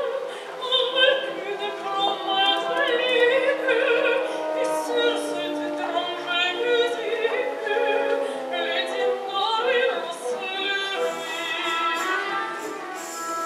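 Operatic singing with a wide vibrato over instrumental accompaniment, continuous and at a fairly even level.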